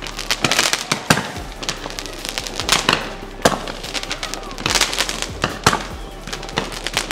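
Fireworks going off: irregular sharp bangs and crackling bursts, thickest about a second in and again around five seconds in.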